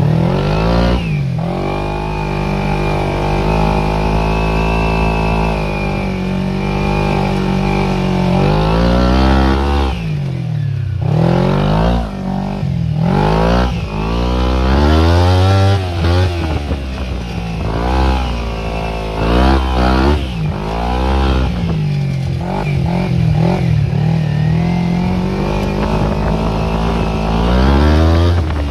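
Small petrol engine of a homebuilt go-kart running, first at a fairly steady speed, then dropping briefly and revving up and down again and again.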